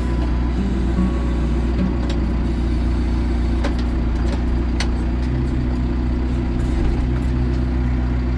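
Tractor engine running steadily, a low drone with a few faint clicks over it.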